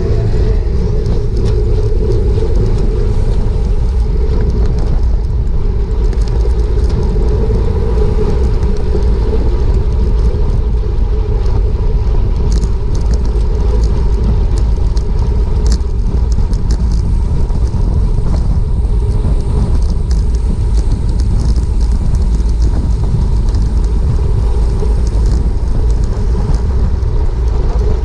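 Steady wind rush buffeting a bicycle racer's action-camera microphone at speed, heavy in the low end, with a few light ticks about halfway through.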